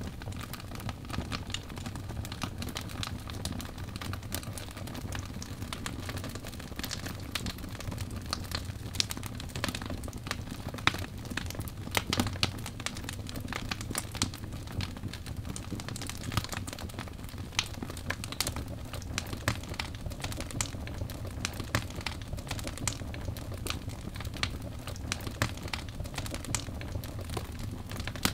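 Wood fire crackling in a fireplace: frequent irregular sharp pops and snaps over a low steady rumble.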